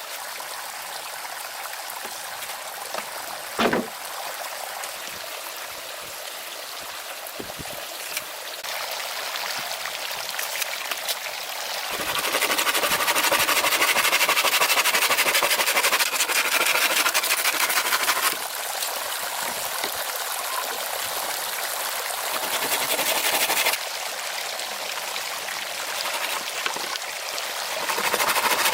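Running water with a steady rushing like a stream, jumping abruptly louder or softer several times, with a single short thump about three and a half seconds in.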